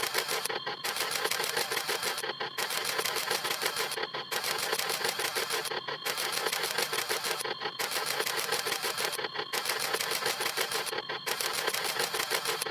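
Camera shutter sound effect repeated very rapidly, a fast stream of clicks broken by a brief gap about every second and a half.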